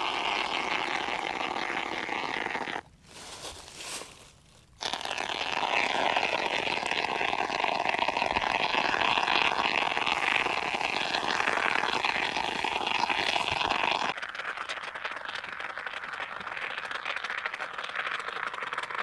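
Spray foam gun on a pressurised can of polyurethane foam, dispensing expanding foam into the seams of insulated concrete forms: a steady crackling hiss. It stops for about two seconds near the start, then runs on, and is softer for the last few seconds.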